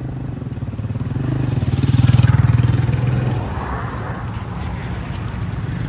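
A motor vehicle's engine passing close by, growing louder to a peak about two seconds in and dropping away about a second later, over steady traffic hum.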